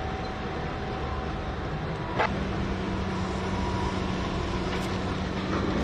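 Heavy mining machinery running: a steady low rumble, with a single sharp metallic clank about two seconds in, after which a steady hum sets in.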